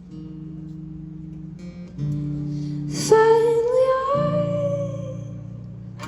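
Live band music: guitar chords ringing and changing every couple of seconds, with a long wordless sung note coming in about three seconds in and held, rising slightly in pitch.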